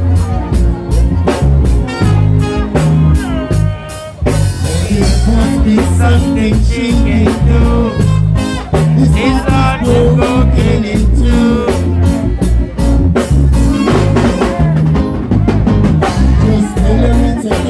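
Live band playing a song with drum kit, bass and a lead singer, the drums keeping a steady beat.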